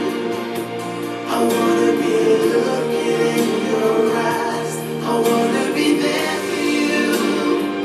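Music with a choir singing long, held chords.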